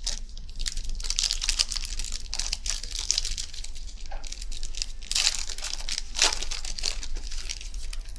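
Plastic wrapper of a trading-card pack crinkling as it is handled and torn open, a dense crackle with louder rips about five and six seconds in.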